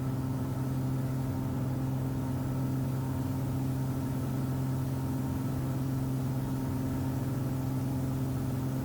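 Cessna Skymaster's front and rear piston engines and propellers droning steadily in the cabin on final approach, an even hum with no change in pitch.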